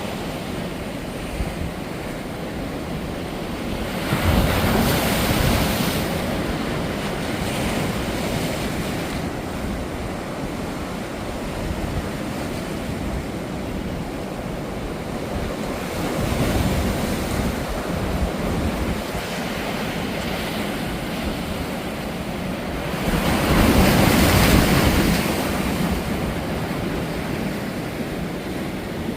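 Sea waves breaking on the shore in high surf: a steady wash of water with three louder breakers, the loudest near the end.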